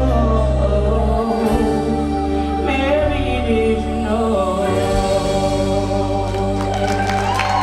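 A woman singing solo into a microphone over music with long held chords and a deep bass line. Near the end her voice rises to a long held high note.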